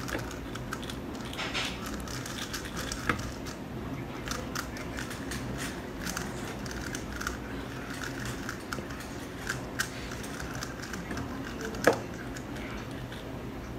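Faint scattered clicks and taps of a speedcube and speed timers being handled on a desk, over a low steady hum, with a sharper knock about twelve seconds in.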